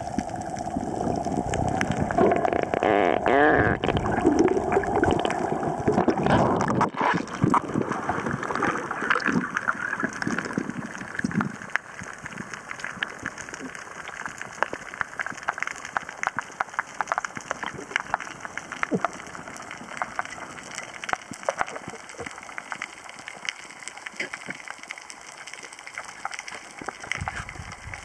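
Underwater sound heard by a submerged camera: bubbling and gurgling water as the divers go under near the surface for about the first twelve seconds, then a quieter steady water hiss full of small, frequent clicks and crackles as the diver descends.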